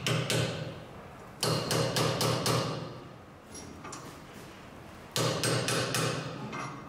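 Hammer tapping a brass drift to drive a new center bearing onto a cardan shaft, metal striking metal in three runs of several quick taps: one at the start, one about a second and a half in, one about five seconds in.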